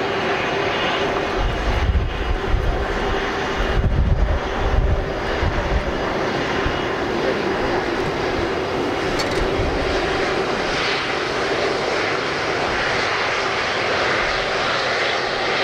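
Boeing 737 twin jet engines running through landing and rollout: continuous jet noise with a steady whine. Low rumbling gusts come between about two and five seconds in, and the hiss grows brighter in the second half.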